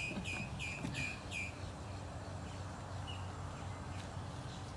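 A bird calling: a quick run of short, high, downward-slurred chirps, about three a second, that stops about a second and a half in, with one faint chirp later, over a steady low outdoor hum.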